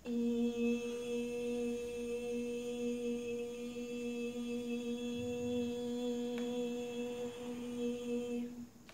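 A woman's voice holding one steady sung note, a hum-like tone, for about eight and a half seconds, then stopping.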